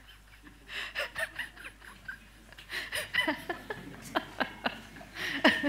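Silent laughter: breathy puffs and hissing snickers with little voice, growing louder and more voiced toward the end.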